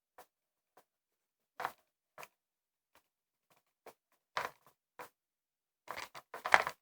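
Homemade borax-and-glue slime being squeezed and pulled by hand, giving short scattered sticky clicks and squelches, with a quicker run of them near the end.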